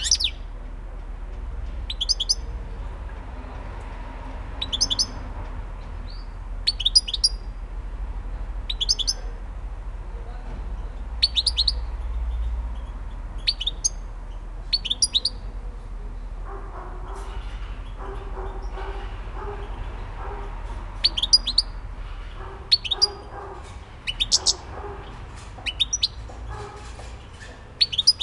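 European goldfinch chirping: short bursts of high, quickly falling chirps, one cluster every second or two.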